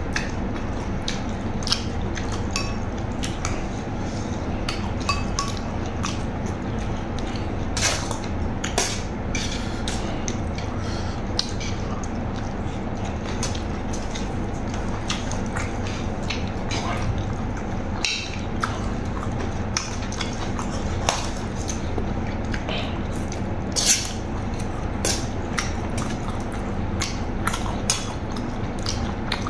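Spoon and fork clinking and scraping on a metal serving tray with wet eating sounds, scattered short clicks over a steady low hum.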